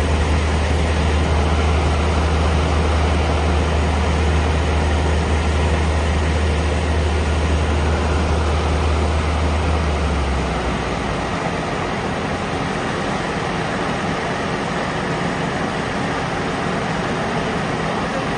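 Kubota WR575 combine harvester running steadily with a loud mechanical din. A deep low rumble drops away about ten seconds in, leaving the machine running a little quieter.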